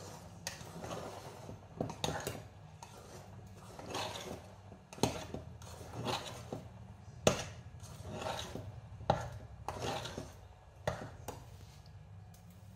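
A big steel fork stirring stiff, crumbly maize meal in a stainless steel pot: repeated scraping strokes about once a second, with sharp clinks of metal on the pot now and then.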